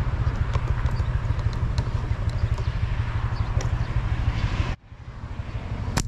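Footsteps crunching on dry ground and brush while walking, over a loud low rumble. The sound cuts off abruptly about three-quarters of the way through, then comes back more faintly.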